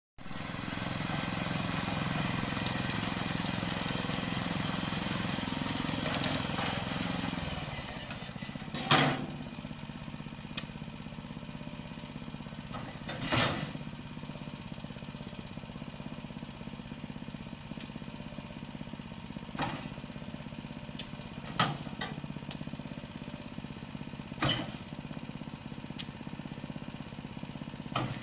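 The small engine of a mini dumper for hauling oil palm fruit, running. It runs harder for the first seven seconds or so, then settles to a lower steady run. Six sharp knocks come every few seconds after that.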